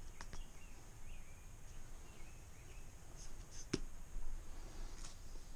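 Faint clicks and ticks as a turkey baster's bulb is pumped at a motorcycle tire's valve stem, pushing balancing beads through a hose into the tire. There are a couple of light clicks near the start and one sharper click a little under four seconds in.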